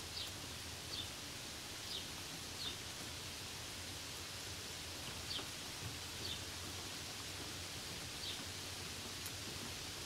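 Steady hiss of falling rain, with a bird giving short, high, falling chirps now and then, about seven in all.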